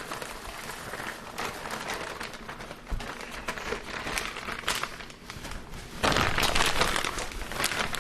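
Plastic bag of frozen vegetables crinkling as it is handled, with a short thump about three seconds in and a louder stretch of rustling about six seconds in.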